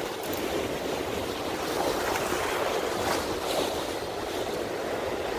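Steady wash of wind and channel water lapping against the granite jetty rocks.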